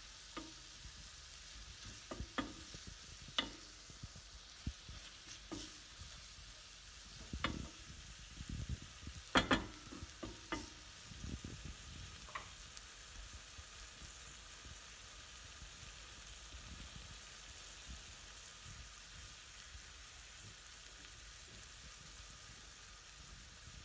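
Chicken pieces and sliced onions frying in olive oil in a stainless steel pan: a steady sizzle. Over the first half a wooden spoon knocks and scrapes against the pan several times as they are stirred, then the stirring stops and only the sizzle remains.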